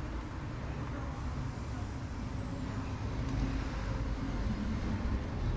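Steady low rumble of passing road traffic, growing a little louder toward the end.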